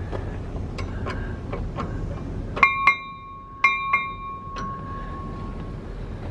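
The frame-mounted bell of a CSX SD45-2 diesel locomotive struck by hand, with no air ringer: four sharp strikes in two pairs about a second apart, each ringing at one clear pitch, the last ring fading over about two seconds. A few light metallic ticks come before the strikes.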